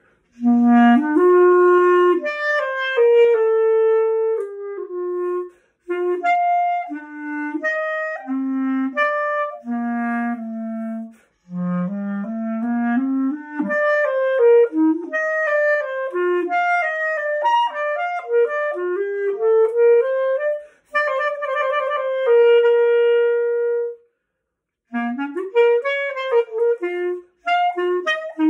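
Solo clarinet playing a melody in phrases broken by short breath pauses, with a quick rising run a little before the middle and a long held note about three-quarters through.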